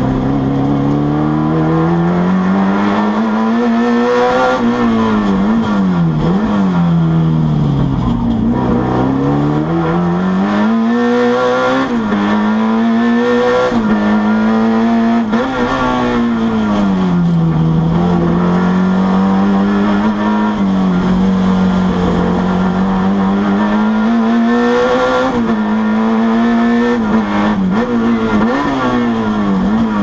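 Alfa Romeo Giulia GTAm Group 5 race car's four-cylinder 2.0-litre engine heard from inside the cockpit, driven flat out on track. Its pitch climbs and drops again and again as the revs rise and fall, and holds a steady note for several seconds in the middle.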